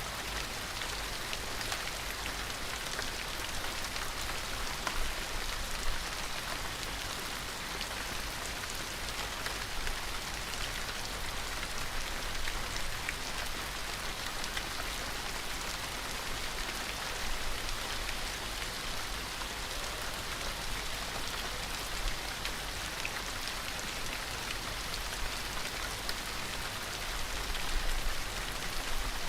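Steady rain falling, a dense even hiss with many fine drop ticks on a surface.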